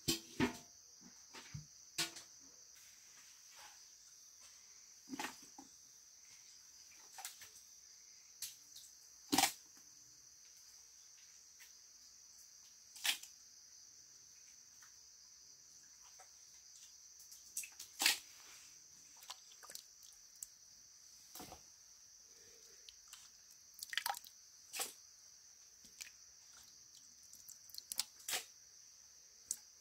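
Steady high-pitched drone of insects such as crickets, with scattered sharp clicks and taps every second or two.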